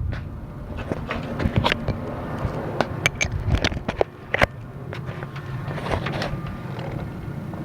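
Scattered light clicks and knocks of metal tools and parts being handled during a spark plug change, over a steady low hum.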